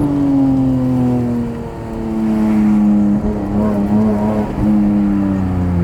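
BMW E46 M3's inline-six engine running with the car under way. Its note falls off at the start, dips briefly about two seconds in, then holds fairly steady under light throttle before easing down near the end.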